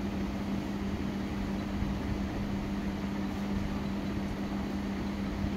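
Steady electric motor hum with an even low tone, and a faint snip of tailor's shears about four seconds in.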